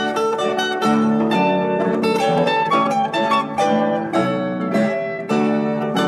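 Background music: a plucked-string instrumental, guitar or mandolin-like, with quick successive picked notes.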